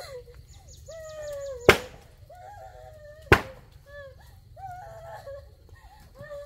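Two sharp chopping strikes about a second and a half apart, among repeated short calls of chickens.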